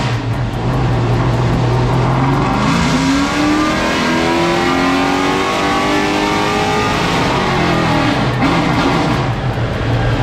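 GM 604 crate engine, a carbureted 350 small-block V8, idling in a race car on a chassis dyno. About two and a half seconds in it makes a full-throttle pull, revs rising steadily up to the rev limiter, then coasts back down to idle near the end. Freshly jetted leaner, it runs smoothly all the way up without the rich breakup.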